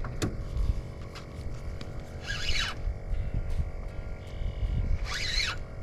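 Two harsh bird calls, each about half a second, about two seconds in and again near the end, over a low rumble of wind and boat noise with faint scattered clicks.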